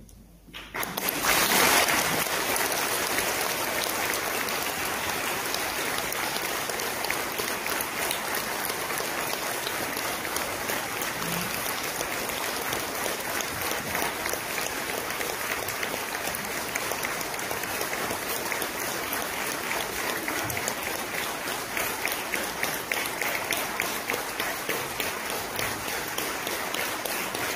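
Audience applauding. It starts about a second in, swells briefly and then goes on steadily.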